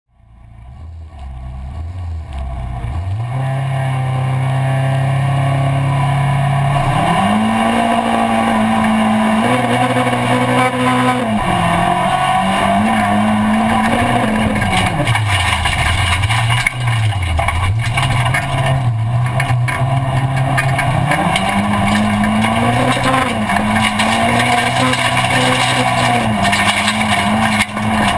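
Rallycross car's engine heard from inside the cockpit, fading in over the first few seconds and then running hard, its pitch repeatedly rising under acceleration and dropping back, with two deep dips in the middle.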